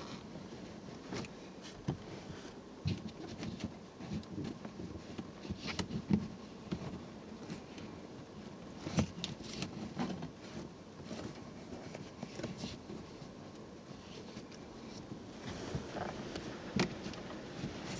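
Hands working a car's rear seat cushion and its fabric upholstery, rustling and rubbing with scattered soft taps and knocks, a few of them sharper, including one near the end.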